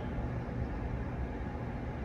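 Pause between a sleeping dog's snores: only a steady low background rumble and hiss.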